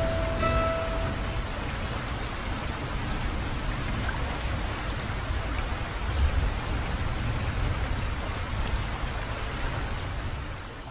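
Steady rain falling, with a low rumble underneath. The last acoustic guitar notes ring out and die away in the first second or so, and the rain fades out at the end.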